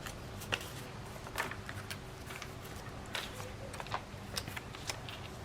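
Paper being handled and folded into a pocket: scattered light rustles and soft taps, about half a dozen brief sounds over a faint steady background.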